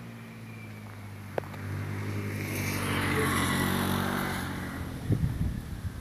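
A motor vehicle's engine running, growing louder to a peak about halfway through and then fading as it passes. A few dull thumps near the end.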